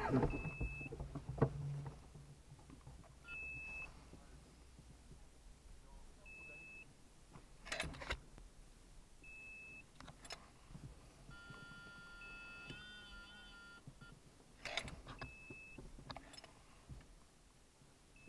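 A short electronic beep repeats about every three seconds, with a few scattered knocks. Around the middle, a chord of several electronic tones sounds and wavers in pitch for about two seconds.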